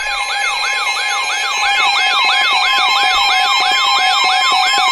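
Electronic emergency alert tone: a siren-like sweep rising and falling rapidly, about three to four times a second, over a steady tone. It sounds between severe thunderstorm warnings, as the alert ahead of the next one.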